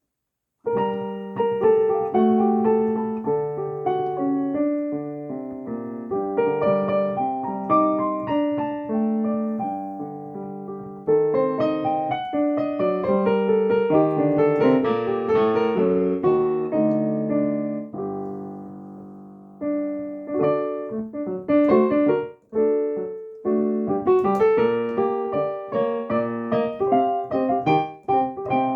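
Solo piano playing an improvised piece: overlapping chords and melody notes, starting just under a second in, with two short breaks in the last third.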